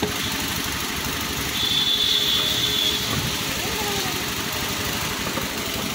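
Scooter engine idling steadily, with a thin high whistle lasting about a second and a half near the middle.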